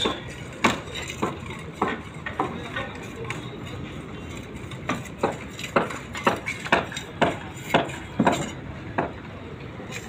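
Sharp metallic clinks and knocks, about two a second, with a lull in the middle.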